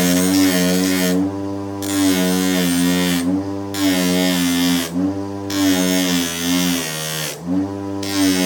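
An electric power tool's motor running with a steady hum, with repeated stretches of harsh hiss each about a second long as it is worked against the metal; the hum sags briefly under load near the end.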